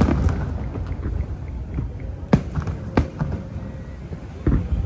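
Aerial fireworks shells bursting: a few separate sharp bangs over a continuous low rumble and echo, then a rapid run of bangs starting near the end.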